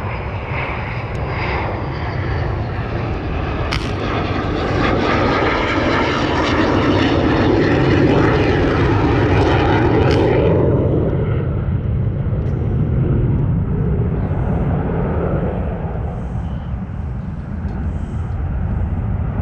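Small engine of a Sig Dewey Bird control-line model airplane running steadily at high speed; about ten seconds in its higher, buzzier part drops away and a lower, duller running sound carries on.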